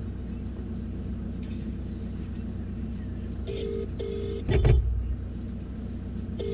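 A mobile phone's ringback tone as an outgoing call rings: pairs of short beeps, starting about halfway through and coming again near the end, over the steady low rumble of a car interior. A single loud thump comes just after the first pair of beeps.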